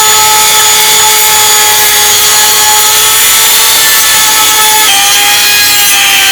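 Small electric power tool running at full speed, a high-pitched motor whine over a loud abrasive hiss, as in grinding or sanding; its pitch drops a little about five seconds in.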